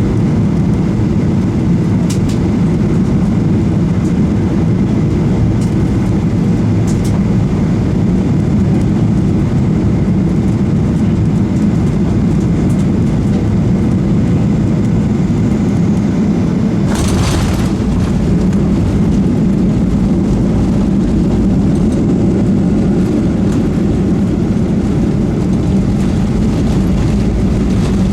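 Boeing 737-800 airliner heard from inside the cabin: a steady low rumble of engines and airflow, with a short burst of hiss about seventeen seconds in.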